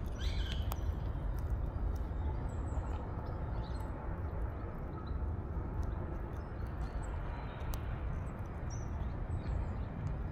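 Steady low outdoor rumble, like distant traffic, with a few faint, short, high bird chirps and scattered sharp clicks.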